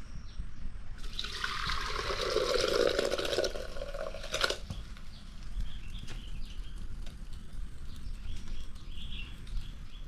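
Liquid pouring into a cooking vessel for about two and a half seconds, followed by a single sharp knock about four and a half seconds in.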